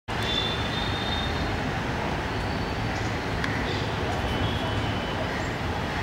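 Steady background hum of a city neighbourhood, like distant traffic, with a faint thin high whistle through the first second and a half and a small click about three and a half seconds in.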